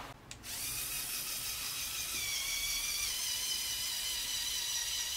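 Electric motor of a Lego Technic vehicle whining steadily through its gear train as it climbs a steep ramp under load, the pitch sagging slightly about two seconds in.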